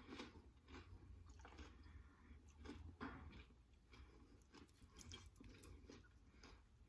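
Faint chewing of a bite of crispy fried chicken wing, with soft irregular clicks.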